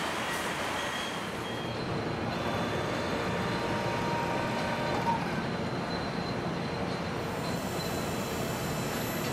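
Steady factory-floor machinery noise in a truck assembly plant: a continuous mechanical rumble with faint high whines over it.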